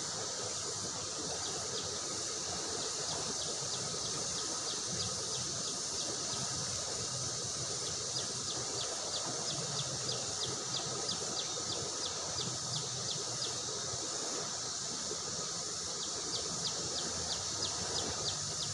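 Steady rush of a fast-flowing river, with a rapid run of short high chirps repeating a few times a second over it.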